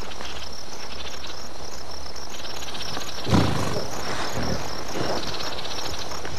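Insects chirring outdoors in a steady, evenly pulsing high buzz. A short low thump comes about three seconds in, with softer knocks after it.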